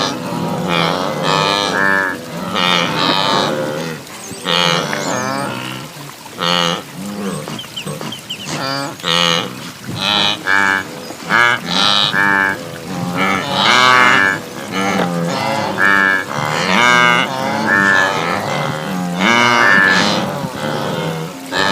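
A herd of wildebeest (gnus) calling: many short pitched calls overlapping one after another, with no break.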